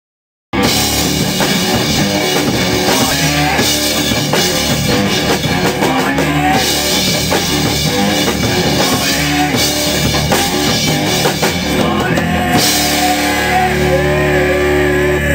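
Hard rock band playing in a rehearsal room: drum kit with cymbals, electric guitar and bass guitar, starting suddenly about half a second in. About twelve seconds in the drums and cymbals stop, leaving held guitar and bass chords, and a man starts singing near the end.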